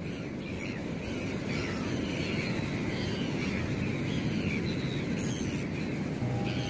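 A flock of gulls calling faintly over a steady rush of wind and sea noise. Music comes in near the end.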